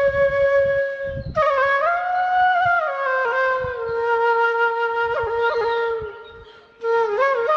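Background instrumental music: a slow solo melody on a flute-like wind instrument, long held notes joined by pitch slides. The phrase fades out about six seconds in and a new one begins near the end.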